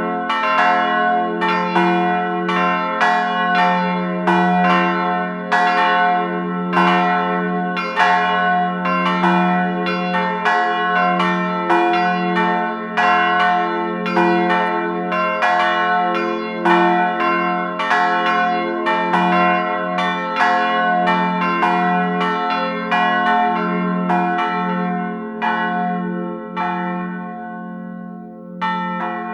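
Church bells ringing, one strike after another with a sustained hum beneath, the strikes growing sparser and fainter over the last few seconds.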